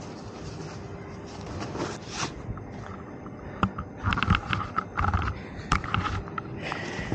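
Handling noise on a helmet: over steady outdoor background noise, a run of knocks, clicks and scrapes starts about halfway through as the helmet is lifted off and turned in the hands.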